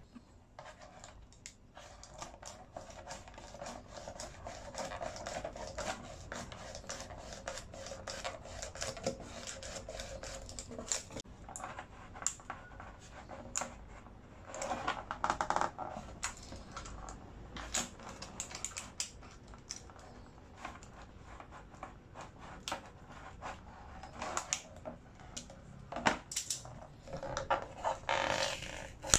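A glued rechargeable battery being worked off its board: irregular scraping and rubbing with many small clicks and taps, in louder clusters about halfway through and near the end.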